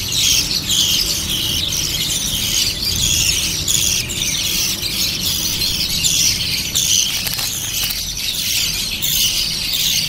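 Budgerigar chicks giving high-pitched begging calls, a rapid repeated raspy chirping that goes on without a break.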